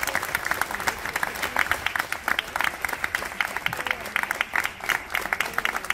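Applause: a group of people clapping their hands, a dense, continuous run of sharp claps.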